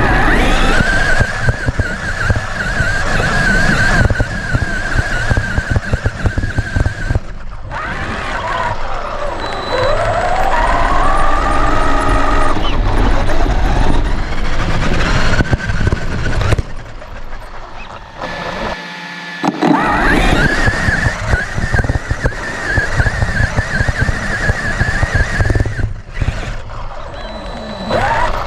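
Traxxas RC truck's electric motor and drivetrain whining at speed, heard from an onboard camera, the pitch rising and falling with the throttle. There is constant rattling and knocking from the chassis over rough ground, and the whine drops away briefly about seven seconds in and again near the twenty-second mark.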